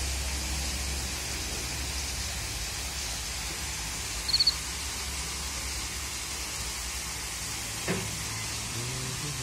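Water splashing steadily down an artificial rock waterfall, an even hiss. About four seconds in, a quick run of four high-pitched chirps, and a short knock near the end.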